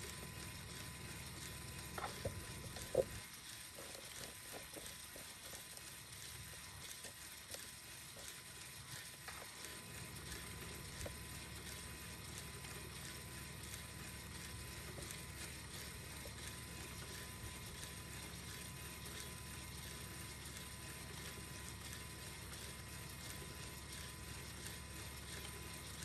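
Lego Technic inline-four engine model with an overhead camshaft turning over steadily: a faint, even mechanical whirr with light clicking from its plastic valve train, and a few louder clicks about two to three seconds in.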